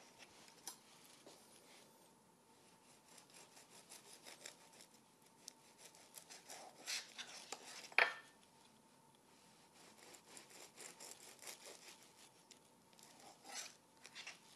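A long kitchen knife sawing through sandwich crusts in quick back-and-forth strokes, in runs of a few seconds, with one sharp knock about eight seconds in.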